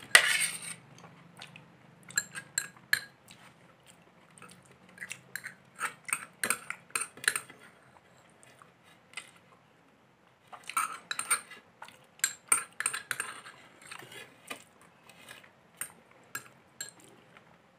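Metal spoon clinking and scraping against a small glass bowl while scooping out the last of a rice pudding, in clusters of light clicks with short pauses between. The loudest clink comes at the very start.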